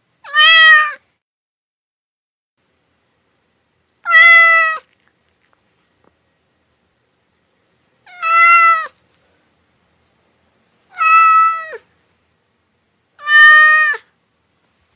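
A cat meowing five times: short, fairly high meows a few seconds apart, each dipping slightly in pitch at its end.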